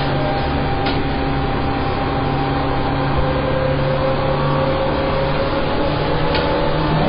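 Seibu 101 series electric train running between stations, heard from inside motor car MoHa 264: a steady rumble of wheels on rail under a hum of traction motors and gears. Some of the tones rise slightly near the end, and a couple of faint clicks sound about a second in and near the end.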